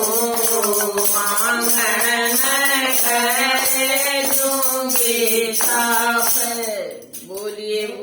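A Haryanvi devotional folk song (bhajan): a voice sings with a steady jingling hand-percussion beat. The music drops away near the end.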